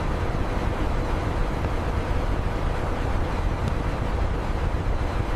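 Steady rushing rumble of industrial freezer fans and machinery, a dense noise heaviest in the low end with no distinct rhythm.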